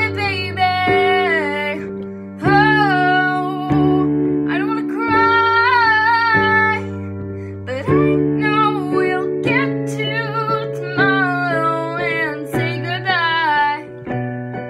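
Female voice singing a slow melody over her own piano accompaniment, with sustained chords struck about every second and a half.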